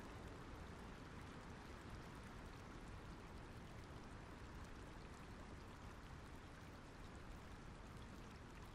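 Shallow river flowing: a faint, steady rush of water.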